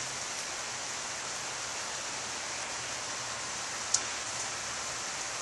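Steady, soaking rain falling on lawn and trees, an even hiss, with a single sharp click just before four seconds in.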